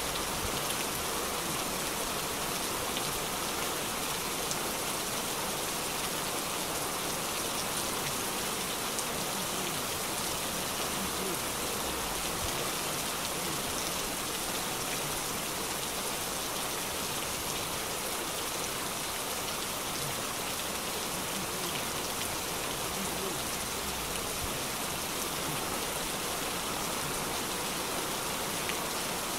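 Heavy rain pouring steadily onto a wet paved street, splashing on the puddled surface, an even unbroken hiss with no distinct events.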